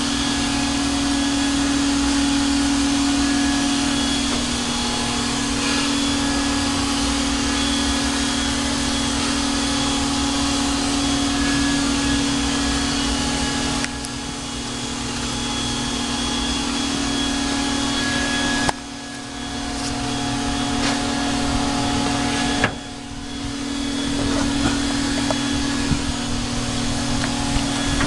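A steady motor drone with a constant hum under a broad hiss. It drops sharply about halfway through and twice more near the end, building back up after each drop.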